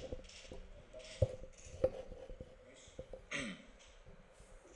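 Quiet room tone with scattered faint clicks and knocks, two sharper knocks a little over a second and nearly two seconds in, and a brief breathy sound about three and a half seconds in.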